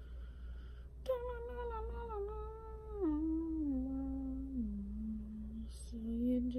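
A woman humming a slow tune to herself. The tune starts about a second in, steps down in pitch through a few held notes, pauses briefly, then starts again near the end.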